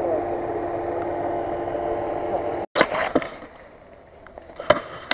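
Nissan Patrol's engine running steadily, a level hum that cuts off abruptly after about two and a half seconds. After it, quieter forest surroundings with a sharp knock near the end.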